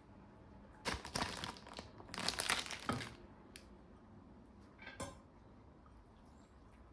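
Plastic food packaging crinkling and crumpling as it is handled, in two dense bursts of about a second each, followed by a click and a shorter rustle.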